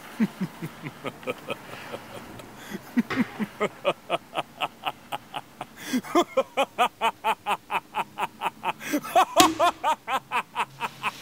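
A person's voice making rapid rhythmic syllables, about three or four a second, each rising and falling in pitch. The syllables start low and climb higher and louder toward the end, with one sharp click about nine seconds in.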